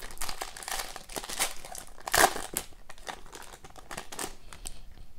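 Shiny plastic wrapper of a 2021-22 Upper Deck Ice hockey card pack crinkling and crackling as hands work it open, with the loudest crackle about two seconds in.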